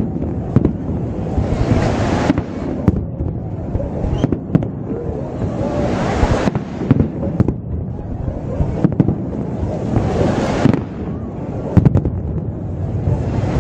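Aerial fireworks exploding: sharp bangs and crackles at irregular intervals over a continuous low rumble.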